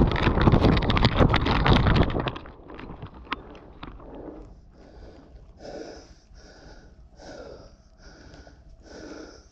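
Dry corn stalks and leaves brushing and crackling loudly against the body-worn camera as a hunter pushes through standing corn, stopping about two seconds in. After that, regular heavy breathing, one breath about every half to three-quarters of a second.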